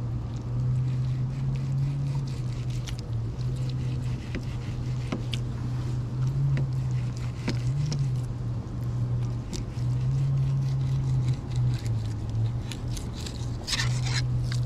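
A steady low hum that wavers and breaks off briefly now and then, with light clicks and scrapes of a fillet knife cutting a cero mackerel fillet on a plastic fillet board.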